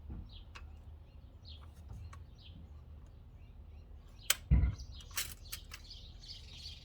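Birds chirping in the background, joined by more chirping near the end. About four seconds in there is a sharp click and a heavy thump, the loudest sound, followed by a few lighter clicks.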